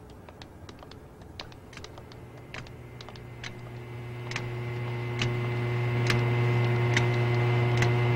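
Footsteps clicking on a hard floor, several a second at first and sparser later, over a steady low hum that grows louder.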